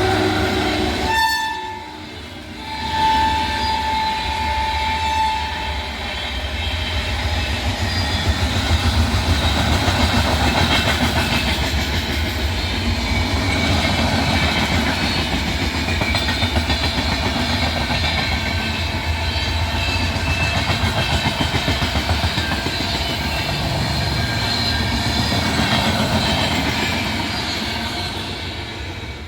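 Indian Railways WAP-7 electric locomotive sounding its horn for about two seconds a few seconds in, then the express's coaches rolling slowly past with a steady rhythmic clatter and grinding of wheels over the track.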